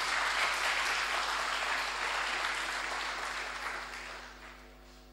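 Audience applauding at the end of a talk, a dense patter of clapping that swells at once and then fades away over about four seconds.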